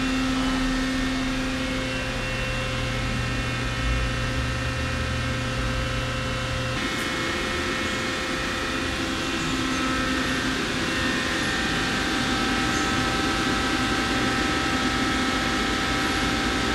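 Steady machine hum from a powered-up CNC lathe, with several steady tones over a hiss. A low hum drops out about seven seconds in.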